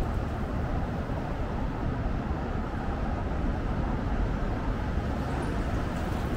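Steady road traffic noise: motor vehicles running along a busy city road, an even low rumble with no single event standing out.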